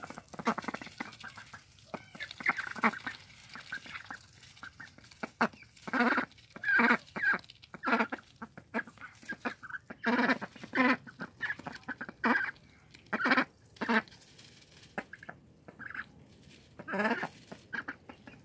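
Indian runner ducklings calling in short, repeated calls, most of them in a run through the middle of the stretch and one more near the end. Faint rustling and clicking in the straw bedding comes before the calls.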